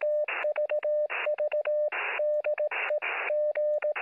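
Morse code heard on a radio receiver: a single steady tone keyed in short and long elements, with bursts of radio static filling every gap between them.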